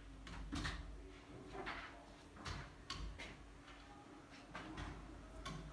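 Hands handling a smartphone: scattered soft clicks and rustles, over a low steady hum.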